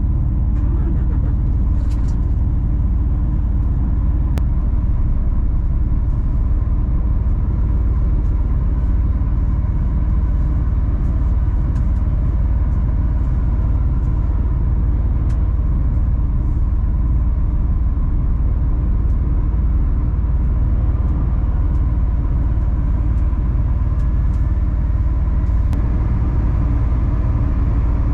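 Steady diesel engine and road rumble of a 26-tonne three-axle rigid lorry under way, heard inside the cab, with a heavy low drone.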